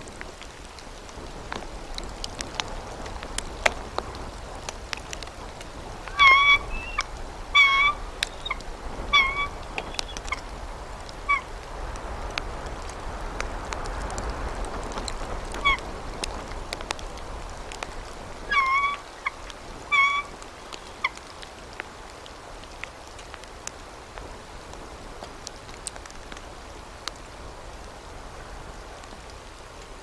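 Bald eagle calling: two bouts of short, high, repeated chirping notes, the first about six seconds in and the second about nineteen seconds in. Scattered faint ticks run throughout.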